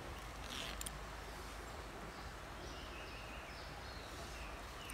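Faint outdoor ambience: a steady low background hiss and rumble, with a few faint high chirps and a couple of soft clicks a little under a second in.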